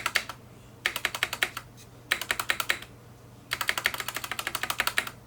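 Typing on an Anne Pro 2 keyboard with unlubricated Cherry MX Brown tactile switches: quick runs of keystrokes with short pauses between them, the longest run near the end.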